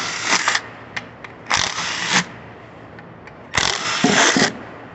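Small impact wrench hammering in three bursts, trying to break loose stiff cylinder head bolts on an engine.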